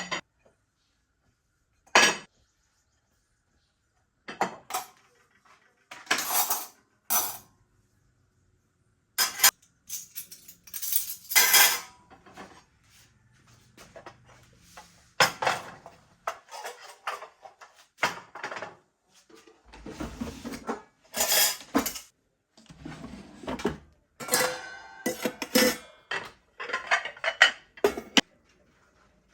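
Dishes and cutlery clinking and clattering in irregular bursts, with short silent gaps, as they are handled and set down.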